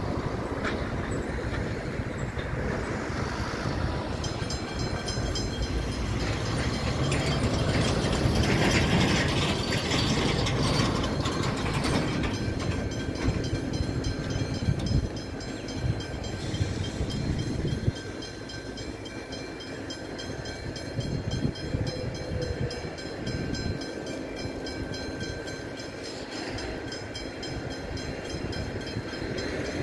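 Slow freight train hauled by three Pacific National mainline diesel-electric locomotives (NR, LDP and TT classes): the diesel engines rumble, with a fine, high metallic clicking and ringing from the wheels and wagons over it. It is loudest around ten seconds in and eases after about eighteen seconds.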